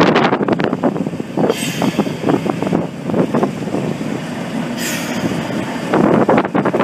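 BR Class 37 diesel locomotive running slowly past at close range, its engine and running gear loud and uneven. Two short hisses cut in, about a second and a half in and again near five seconds.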